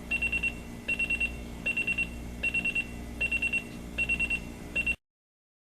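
Sony ICF-C1T clock radio's buzzer alarm beeping: quick groups of four high beeps, repeating a little faster than once a second, cutting off suddenly about five seconds in.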